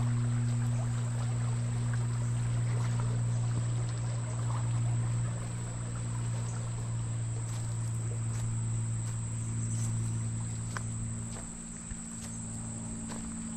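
A steady low mechanical hum, easing off a little near the end, with a thin high insect drone over it and a few faint clicks.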